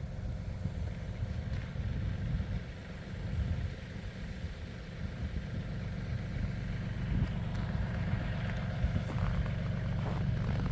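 River ice pans drifting and grinding against each other and the bank, a faint hiss and crunch that grows a little louder near the end, over a steady low rumble.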